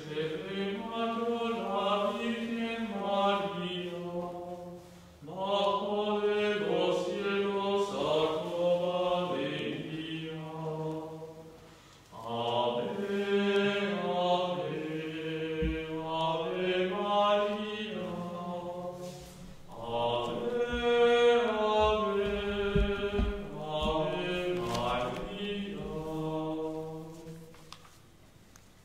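Slow, chant-like sung entrance hymn opening a Catholic Mass, in four long phrases with short breaks between them.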